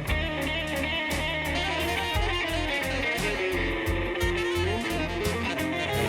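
Instrumental break of a slow blues song: an electric guitar plays a lead line over the band, with no singing.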